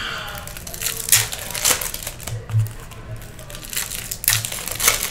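Foil wrapper of a Topps Chrome baseball card pack crinkling and tearing as the pack is ripped open by hand, in several sharp crackles.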